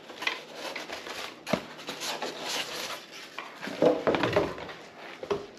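Cardboard box being handled and lifted off a boxed speaker: irregular rustling and scraping of cardboard and packaging, with a sharp knock about one and a half seconds in and a busier stretch of handling around four seconds.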